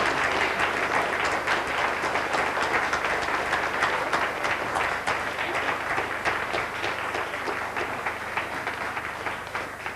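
Audience applauding, a dense crowd of clapping hands that slowly thins out and fades toward the end.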